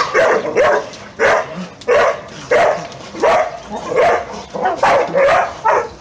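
A dog barking over and over, roughly a bark every half to three-quarters of a second, while dogs fight.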